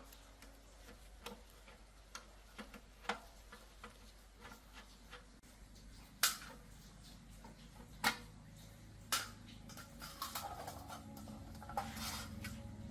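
Scattered light clicks and knocks of metal parts being handled, with a few sharper strikes in the middle. Near the end comes a rougher stretch of scraping and rustling.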